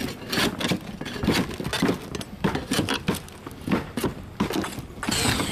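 Irregular metallic clanks, knocks and rattles of old metal roof flashing being pried and pulled off. Just before the end the sound changes to a steadier noise.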